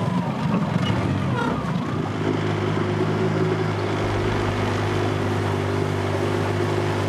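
Small outboard motor driving an aluminium boat. It is rough and mixed with water noise for the first two seconds, then settles into a steady drone.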